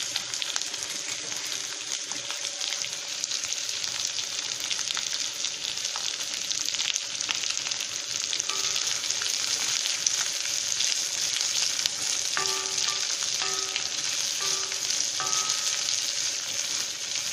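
Sliced ivy gourd frying in hot oil in a kadai: a steady sizzle with fine crackling throughout. Near the end a spatula stirs the pieces around the pan.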